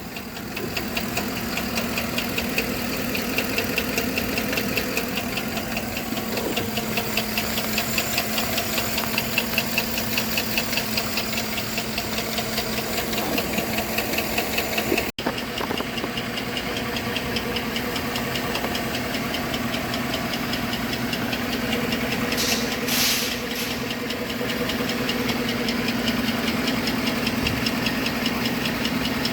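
Engine running at a steady idle with a regular knock, about four to five knocks a second.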